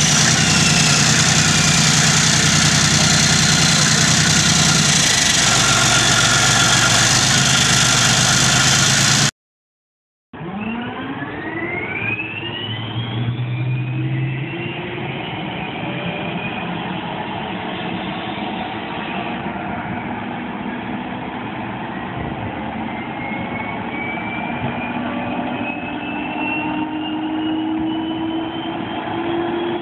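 A Leopard 2 tank's V12 diesel engine running steadily. It cuts off abruptly into a second of silence. Then an M1 Abrams tank's gas turbine starts with a whine that rises quickly in pitch, then keeps climbing slowly as the turbine spools up.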